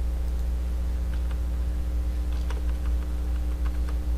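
A few scattered computer keyboard keystrokes, faint, over a steady low electrical hum.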